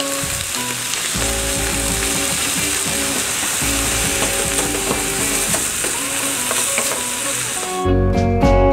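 Ground beef sizzling as it fries in an enamel skillet, with clicking and scraping as a wooden spoon stirs it. Near the end, louder guitar music comes in.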